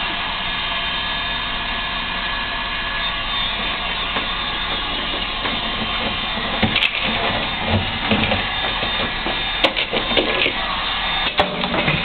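Heat gun blowing hot air steadily while melting frost and ice inside a refrigerator's freezer compartment. In the second half there are a few sharp clicks and knocks.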